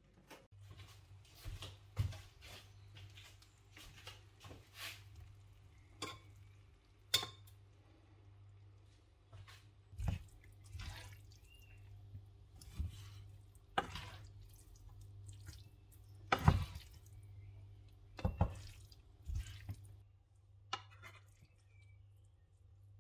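Kitchen sounds of cooking pasta: water dripping in a stainless steel sink as pasta drains in a metal colander, and a series of sharp clinks and knocks of utensils against metal pots and pans, over a steady low hum.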